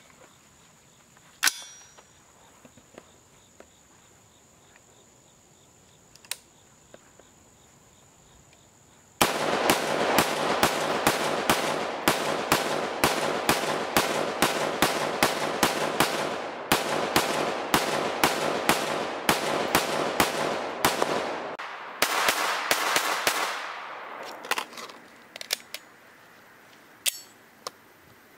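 AR-15 rifle with a lightweight bolt carrier group, firing 68-grain rounds. A few handling clicks come first. About nine seconds in, rapid semi-automatic fire starts at about three shots a second and runs for some twelve seconds, then pauses briefly, then a few more seconds of shots follow. A couple of clicks come near the end.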